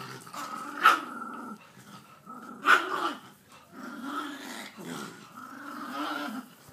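A pit bull and a Jack Russell terrier play-fighting, growling almost continuously in low, rising-and-falling rumbles. Two sharp barks break through, about a second in and just before three seconds.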